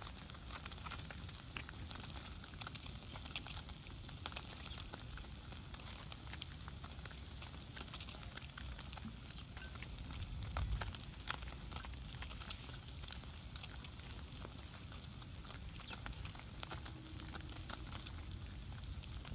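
Small wood fire crackling with scattered sharp pops, over a low rumble that swells briefly about halfway through.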